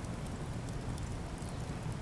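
Campfire of cedar offcuts burning, with a steady low rustle and a few faint scattered crackles.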